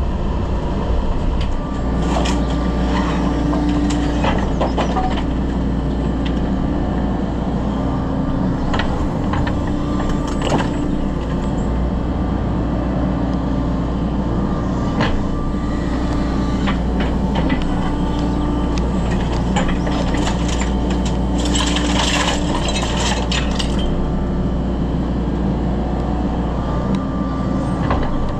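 Excavator engine running steadily under working load, with a hydraulic tone that comes and goes as the grab moves. Over it come scattered cracks, knocks and clatters of timber and stone rubble being broken and shifted, with a dense run of cracking about three-quarters of the way through.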